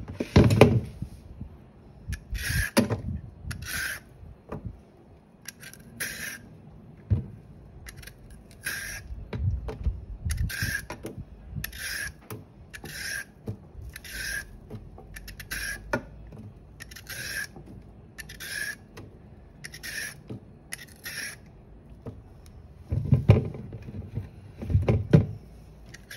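Y-peeler scraping down a raw carrot in repeated crisp strokes, about one a second. Near the end the strokes pause for a few dull knocks.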